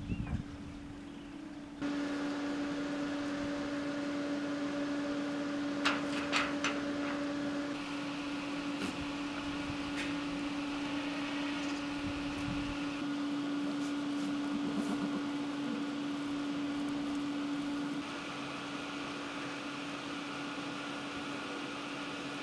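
A steady mechanical hum with one constant low tone, shifting slightly in level and tone a few times. A short cluster of sharp clicks comes about six seconds in.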